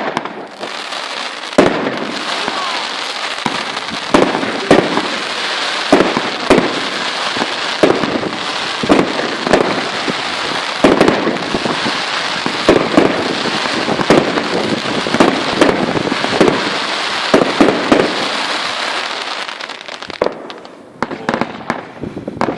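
Fireworks going off: a dense, steady crackle with many sharp bangs scattered through it, thinning out and dying away about twenty seconds in.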